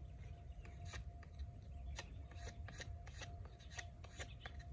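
Knife whittling a skewer: short, sharp cuts and clicks at an irregular pace, about two or three a second.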